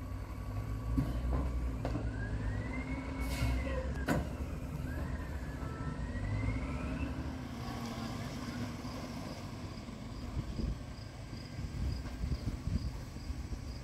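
Rear-loader garbage truck running at the curb, a steady low engine rumble with a whine that rises and falls twice, and a few sharp metallic clanks in the first few seconds as the rear hopper is loaded.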